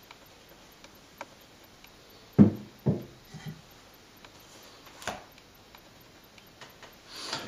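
Wooden hand plane being handled and set down: two dull thumps about half a second apart, a little over two seconds in, with a few light clicks before and after.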